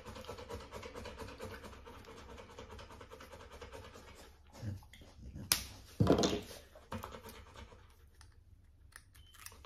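Rottweiler puppy panting for the first few seconds, then a sharp click and a heavier knock a little past halfway, with a smaller click after, as a plastic vaccine syringe is handled and tightened.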